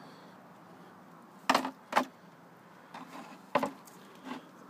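Several sharp knocks and clicks of hard objects being handled: two loud ones about half a second apart near the middle, another loud one about a second and a half later, and a few softer taps between.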